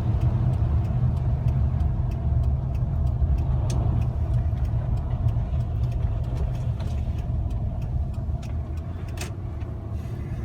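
Steady low road and engine rumble inside a moving car's cabin, with scattered faint light ticks over it.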